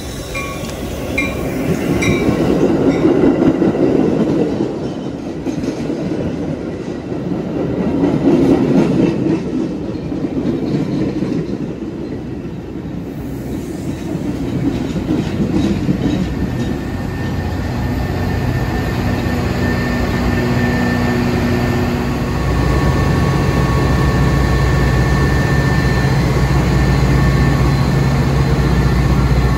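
Metra commuter train arriving: bilevel gallery cars roll past and slow, wheels clacking over the rail joints, with a light brake squeal in the first few seconds. In the last several seconds the diesel locomotive at the rear comes alongside and its engine gives a steady low hum.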